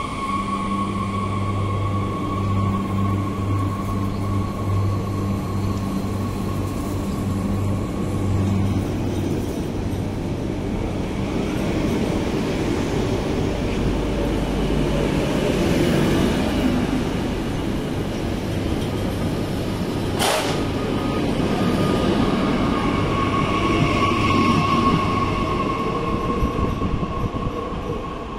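Bombardier AGC regional multiple-unit train at a station platform. It stands with a steady hum and whine, which stop about nine seconds in, then it pulls away, its wheels rumbling louder along the rails as it moves off. A single sharp clank comes about twenty seconds in.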